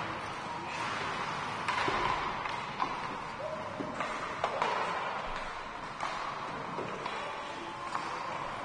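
Ice hockey rink ambience: a steady background hubbub broken by about six sharp knocks of sticks and pucks on the ice and boards.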